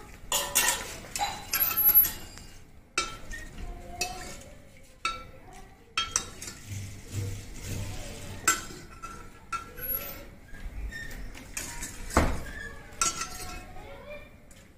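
Steel ladle clinking against a stainless steel pot and bowl while curry is scooped out and poured, in irregular metallic clinks with a short ring, the loudest one near the end.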